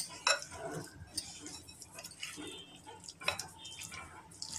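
Silicone spatula stirring a wet filling of chopped vegetables and mayonnaise in a ceramic bowl, with a few light taps of the spatula against the bowl.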